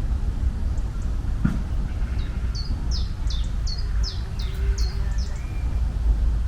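A bird singing a quick series of about ten short, high, falling chirps over a steady low rumble.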